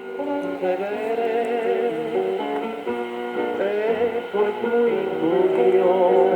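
Guitar music received on a shortwave radio, with the narrow, muffled sound of AM reception and nothing above the treble.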